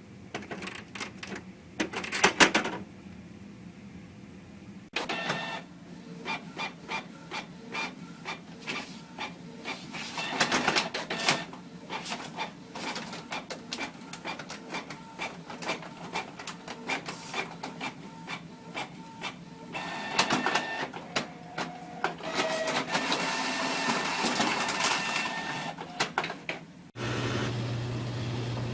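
Desktop printer running: rapid clicking and rattling of the print mechanism, with a steady motor whine. The sound changes abruptly about five seconds in and again near the end.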